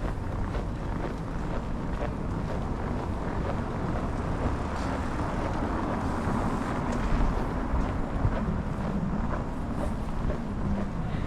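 Downtown street noise in a snowstorm: traffic running steadily, with wind rumbling on the microphone.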